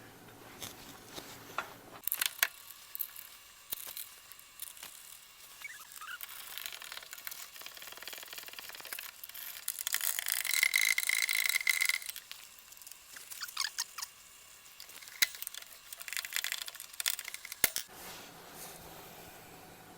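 Scattered clicks and light metallic taps from hand tools and hub bolts being handled during wheel-hub reassembly, with a denser two-second run of fast clicking and a thin steady whine about ten seconds in.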